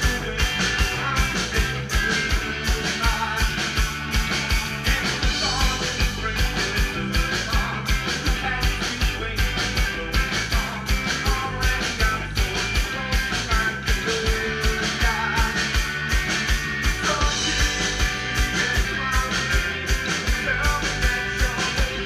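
A live rock band playing amplified through a PA: a steady, fast drum beat under electric guitars and bass, with a singer on the microphone.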